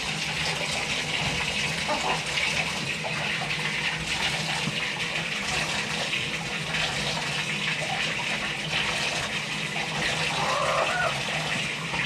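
Bathtub tap running steadily, water pouring into the tub and over a hen held under it for washing.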